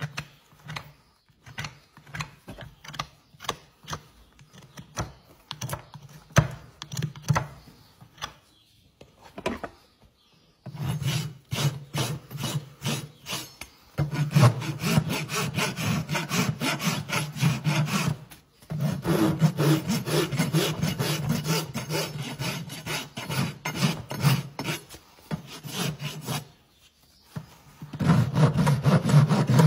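Farrier's rasp scraping across a horse's hoof. For the first ten seconds or so it comes as separate short strokes, then as fast, nearly continuous back-and-forth rasping with two brief pauses.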